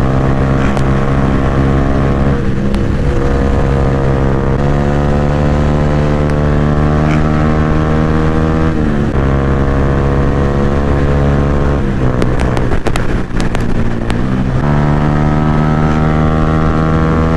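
Yamaha R15's single-cylinder engine through a loud aftermarket Akrapovic exhaust, running at steady revs. The pitch steps abruptly several times, and a rougher stretch with clicks and wavering pitch comes before it settles again near the end.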